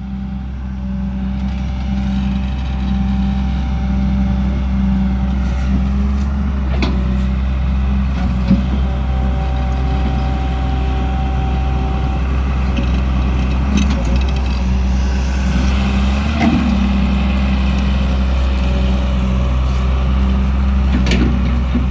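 Caterpillar E200B excavator's diesel engine running steadily under load, with a few short knocks scattered through.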